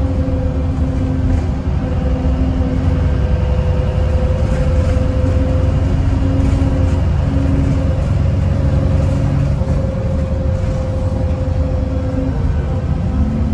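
VDL DB300 double-decker bus heard from inside while driving: a steady low rumble of engine and road noise with a steady whine above it. Near the end the whine stops and a new, lower note rises in pitch.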